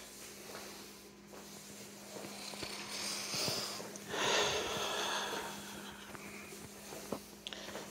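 Microfiber flat mop swishing across a laminate floor, spreading a wet coat of floor finish: soft strokes, the loudest about four seconds in, over a faint steady low hum.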